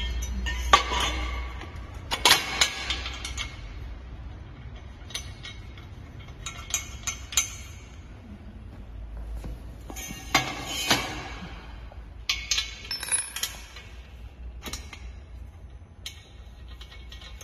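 Steel trampoline frame tubes clinking and knocking as they are slid together and set down on a tile floor, in scattered clusters of sharp metallic knocks.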